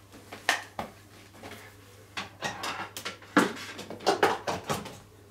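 Scattered clicks, clatters and a few sharp knocks of hard tools being picked up and handled, with no motor running.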